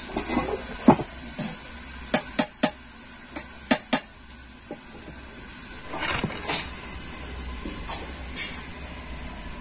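Clanks and clinks of a metal cooking pot and its lid being handled as boiled rice is lifted out: a run of sharp metallic knocks in the first few seconds, then softer scraping and rustling.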